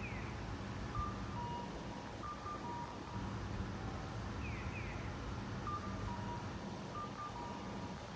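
Electronic pedestrian-crossing signal of the Japanese bird-call type, repeating about every four and a half seconds: a pair of quick falling chirps, then cuckoo-like two-note calls, high then low. Under it is a steady low hum of an idling car engine.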